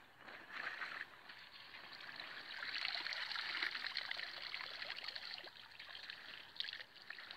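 Water trickling and splashing, with fine crackly drips, growing louder toward the middle and easing off near the end.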